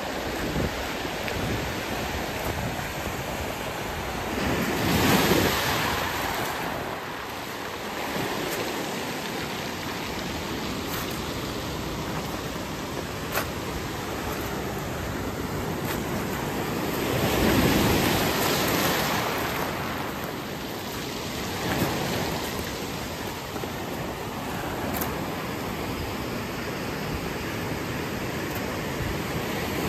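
Ocean surf washing up a pebble beach: a steady rush of water with two louder surges of breaking waves, about five seconds in and again around eighteen seconds in.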